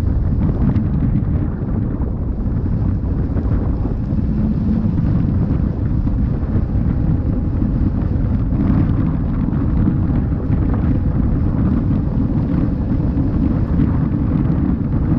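Wind buffeting the camera microphone during a ride on an electric unicycle: a loud, steady, low rumble with no break.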